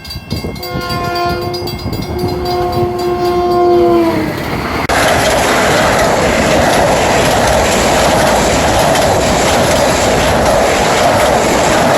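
Train horn sounding a held chord of several notes that slides down in pitch as the train passes, followed by the loud, steady noise of the train running by, picked up on a phone microphone.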